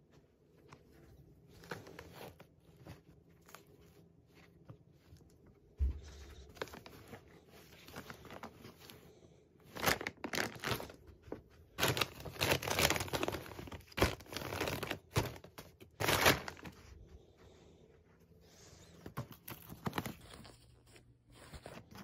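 Clear plastic zippered storage bags crinkling and clothes rustling as they are handled, in irregular bursts that are loudest in the middle, with a soft thump about six seconds in.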